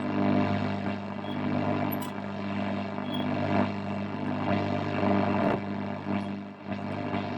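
1951 Radionette Menuett valve radio on the long-wave band with no station tuned in: its loudspeaker gives a steady hum under hiss and static, with a couple of brief crackles.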